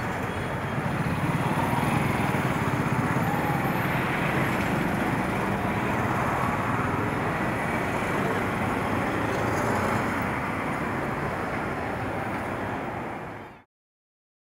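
Busy city road traffic: cars, auto-rickshaws and motorcycles running close by in a steady roar of engines and tyres, fading out quickly near the end.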